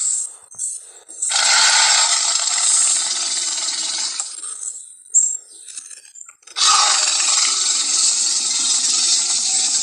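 Giant-creature roar sound effects of the King Kong or Tyrannosaurus rex kind: a long harsh, raspy roar that trails off, a short sharp cry just after five seconds, then another long sustained roar starting about two-thirds of the way in.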